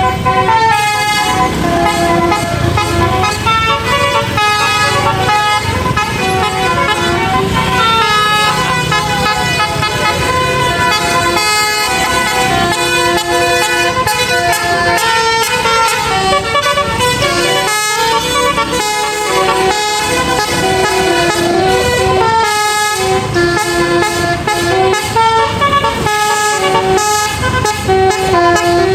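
A bus's Basuri telolet multi-tone horn playing a stepping, tune-like run of notes almost without pause, with short breaks about two-thirds of the way through, over a low rumble of engine and road noise.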